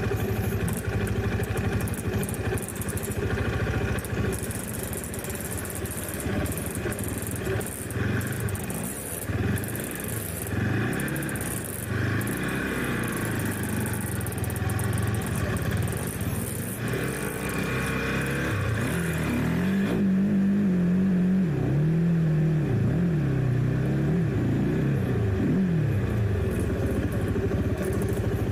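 Trail motorcycle engine revving up and down repeatedly as it rides an off-road dirt track, with rattling and scraping from the bike over rough ground. The revs rise and fall most strongly in the last third.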